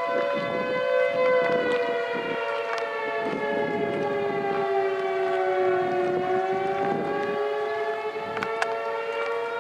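Several outdoor tornado warning sirens sounding together in a test, mostly holding a steady tone, with one siren's pitch sliding slowly down and back up about six seconds in. Gusts of wind buffet the microphone, and a few clicks from the tripod come near the end.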